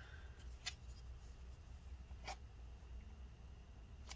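Faint scratching and handling of a plastic scraper working leftover battery adhesive off a laptop's aluminium case, with two light clicks about a second and a half apart, over a low steady hum.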